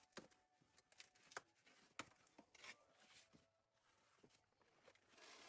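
Faint handling noises from unboxing a hair dryer: scattered light clicks and rustles, with a rising hiss near the end.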